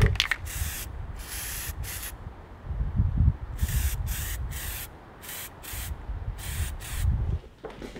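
Aerosol can of rubberized undercoating spraying in a series of short hissing bursts, about a dozen, several in quick succession.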